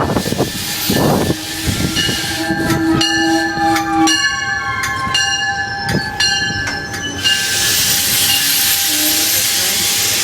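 A train heard up close, with several steady whining tones, some sliding down in pitch, and scattered clicks and knocks. A loud, steady hiss takes over about seven seconds in.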